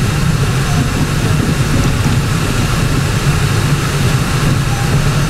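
Car driving along a dirt road, heard from inside the cabin: a steady low engine hum with tyre and road noise.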